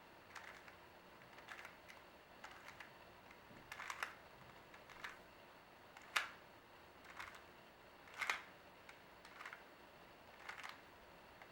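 Faint plastic clicking of a 3x3 Rubik's Cube's layers being turned as a PLL algorithm is set up and executed: short, irregular clicks, about one a second with some quick pairs.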